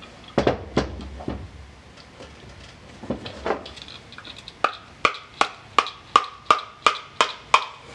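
A brass hammer lightly tapping a roll pin into the plastic drive guide on a hand-held distributor shaft. A few scattered knocks come first, then from about halfway a steady run of taps, about three a second, each with a short metallic ring.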